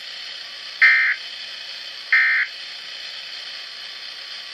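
Two short electronic beeps about 1.3 seconds apart from a weather radio broadcast, over a steady radio hiss that continues after the second beep.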